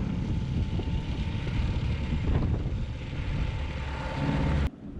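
Outboard motor on a small aluminium dinghy running steadily under way. The sound stops abruptly near the end.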